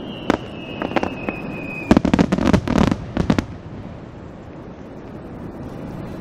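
Aerial fireworks bursting: a whistle falls in pitch and a few single sharp cracks go off, then a rapid string of bangs about two seconds in that stops at about three and a half seconds.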